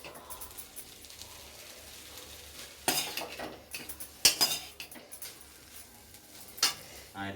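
A spoon stirring and scraping in a cooking pan, mixing noodles with sauce and masala, with a few sharp clinks against the pan, the loudest about halfway through.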